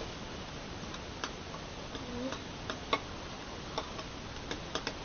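Spoon stirring a soap-and-salt slime mixture in a pan, tapping and clicking against it irregularly, a dozen or so light clicks over a steady hiss.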